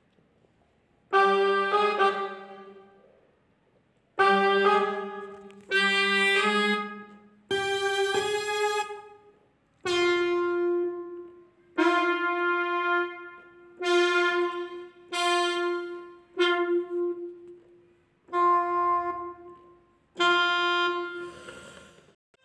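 Background score: a melody played on a brass-like wind instrument as a run of separate held notes in short phrases, starting about a second in.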